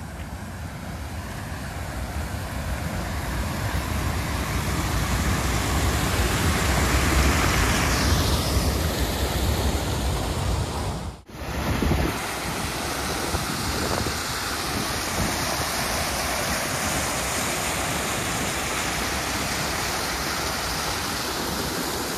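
Water rushing over a waterfall, a steady, even rush that grows louder over the first few seconds, with a brief break about 11 seconds in.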